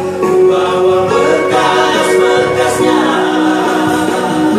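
A male vocal group of six singing together, sustained sung notes that move in pitch.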